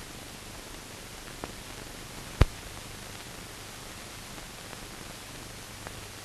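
Steady hiss from the transfer of a silent newsreel, with a few faint clicks and one sharp, loud pop about two and a half seconds in.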